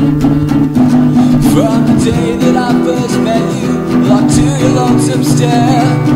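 Indie rock band music led by guitars, playing an instrumental passage.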